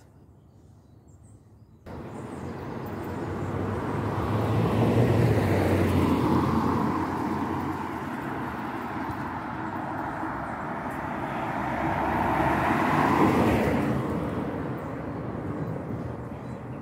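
Road traffic: vehicles passing along the road, the noise coming in suddenly about two seconds in, swelling loudest around five seconds in and again around thirteen seconds in, then fading near the end.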